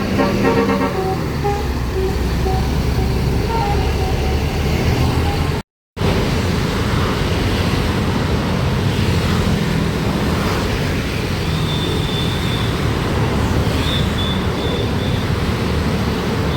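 The end of a multi-tone telolet basuri bus horn melody steps down and fades over the first two seconds. It gives way to the steady rumble of a large bus engine and road traffic, with a brief dropout about six seconds in. A thin, high steady tone sounds a few times near the end.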